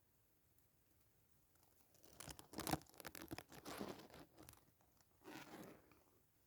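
Rustling and crunching close to the microphone, in a crackly spell of about two and a half seconds and then a shorter one, with near silence around them.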